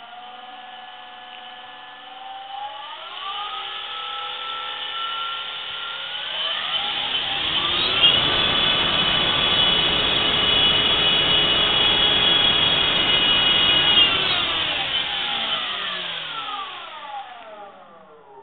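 Brushless motor of a Nitroplanes Airfield P-51 model plane spinning its propeller on a test stand, driven by an Exceed RC 60 A ESC. The whine steps up in pitch at about three and again at about seven seconds, holds at full throttle with loud propeller wash for about six seconds, then winds smoothly down near the end.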